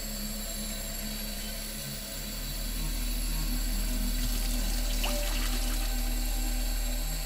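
Kitchen tap running, water splashing over strawberries in a bowl, a steady hiss that swells a little a couple of seconds in. Low, droning background music plays under it.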